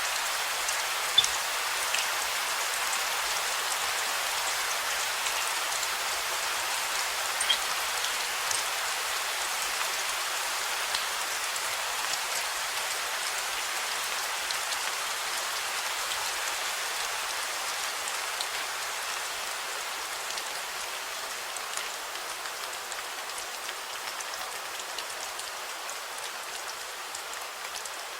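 Steady rain falling on hard surfaces, an even hiss with scattered drop clicks and a couple of sharper louder drops near the start; it eases off slightly toward the end.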